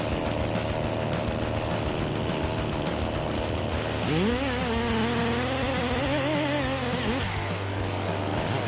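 Engine-driven machine running steadily, with a whine that rises about four seconds in, wavers, and cuts off about three seconds later.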